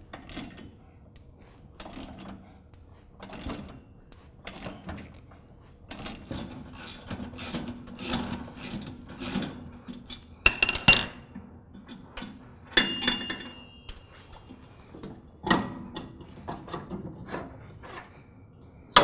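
Ratchet wrench clicking in short strokes as it backs out the bolt under the lawn tractor's motor pulley, with metal tools scraping on the pulley and spindle. About ten seconds in there is a sharp metallic clank that rings on, with more clanks a few seconds later as the loosened parts and tools are handled.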